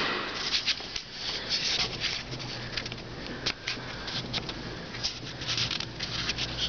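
Handling and rustling noise from a handheld camera being carried while walking: irregular soft scuffs, rubs and ticks.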